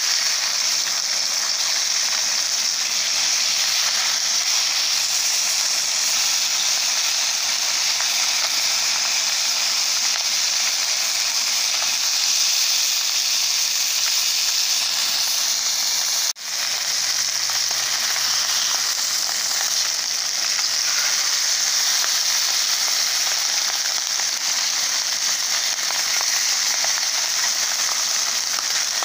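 Rainbow trout pieces sizzling steadily as they fry in oil in a pan, with a momentary break about halfway through.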